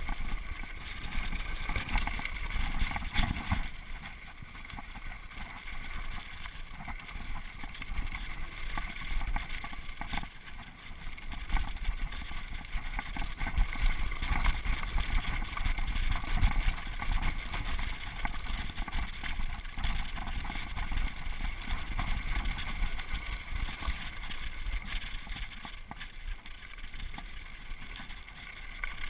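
Mountain bike rolling fast down a rough dirt trail: steady tyre noise on dirt with constant small rattles and knocks from the bike, and wind buffeting the microphone.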